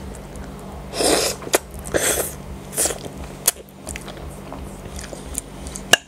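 Close-miked eating of tomato-sauced spaghetti with sausage: three short wet chewing and mouth sounds in the first half. Three sharp clicks of a metal fork are spread through it.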